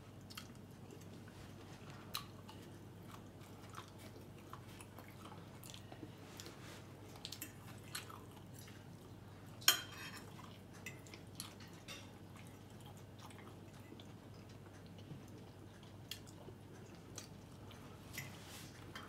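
Fork clinking and scraping on a ceramic dinner plate, with quiet chewing: scattered small clicks and one sharper clink about ten seconds in.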